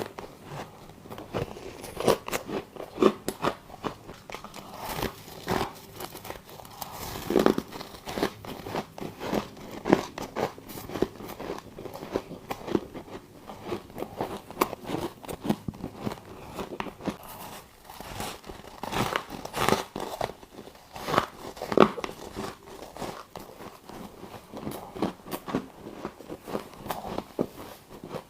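Close-miked biting and chewing of frosty freezer ice chunks: irregular sharp crunches and crackles, several each second, with louder bites now and then.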